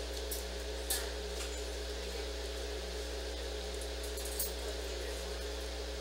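Steady low electrical hum of room tone, with a few faint clicks and taps about a second in and again near the middle.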